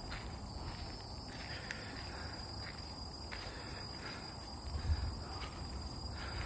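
Insects calling steadily in forest: a continuous high, even tone with a fainter one above it. A low thump sounds about five seconds in.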